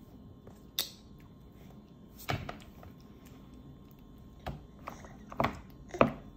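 Hands knocking and slapping on a plastic high-chair tray while grabbing mashed blueberry pancake: about five sharp knocks spread out, the loudest near the end.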